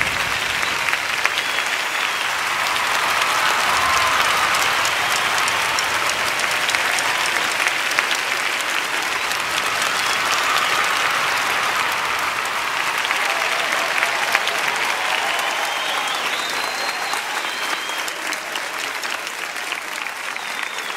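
Large crowd applauding steadily, a dense patter of many hands clapping that eases off slightly near the end.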